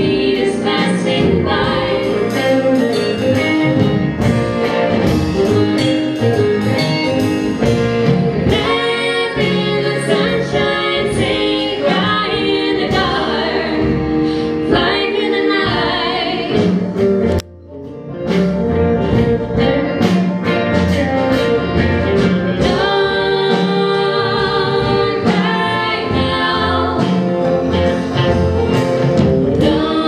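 Live acoustic string-band music: three women singing in close harmony over banjo, upright bass and acoustic guitar, with a brief break in the music just past halfway.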